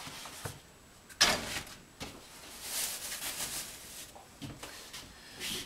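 Objects being handled and shifted about: one sharp knock about a second in, then softer knocks and rustling.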